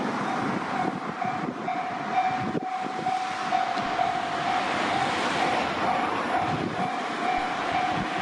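Electronic level-crossing bell on a Japanese railway crossing ringing in a steady repeating tone, about two strokes a second, while a train runs past with the noise of its wheels on the rails.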